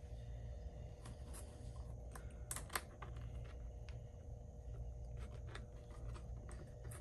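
Light clicks and taps from handling a pickleball paddle while its new edge guard is pressed onto the rim, with a couple of louder clicks about two and a half seconds in, over a low steady hum.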